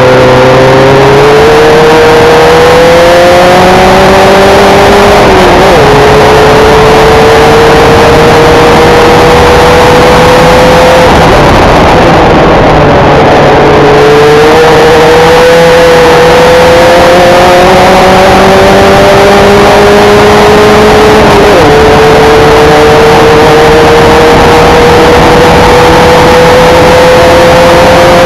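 Formula 1600 single-seater's engine at full throttle, very loud, climbing steadily in pitch through the gears. There is a quick upshift about five seconds in and another about three quarters of the way through. Midway the pitch drops for a few seconds as the driver lifts, then it picks up and climbs again.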